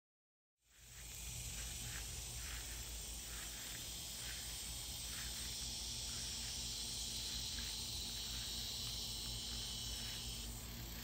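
Outdoor ambience fading in about half a second in: an even, high insect hiss with faint, irregular short chirps, over a steady low hum.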